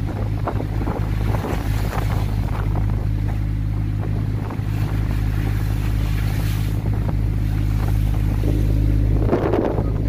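Fishing boat's engine running with a steady low hum, under wind buffeting the microphone and the rush of rough, choppy sea.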